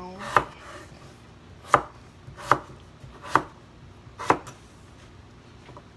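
Kitchen knife chopping through raw potatoes onto a wooden cutting board: five sharp chops at uneven intervals, roughly one a second, ending a little over four seconds in.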